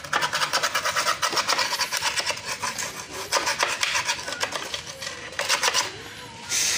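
Rapid, scratchy rubbing and scraping, many short strokes a second, from hand work on a scooter's plastic radiator cover.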